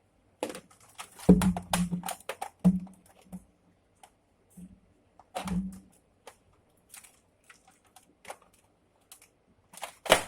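Nerf Elite Retaliator dart blaster being primed and fired at a stack of cups: sharp plastic clicks and clacks with dull thuds and clatter, heaviest in a quick run about a second in and again around five and a half seconds, and one sharp click near the end.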